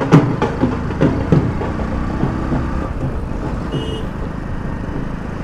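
Hero Splendor motorcycle's single-cylinder engine running steadily at cruising speed, with wind and road noise. A few sharp knocks in the first second, and a brief high beep a little before four seconds in.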